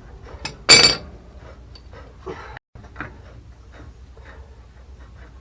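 Metal tools and copper pipe fittings clinking while a plumbing union is worked loose: one loud ringing metallic clank about a second in, then lighter scattered knocks and taps.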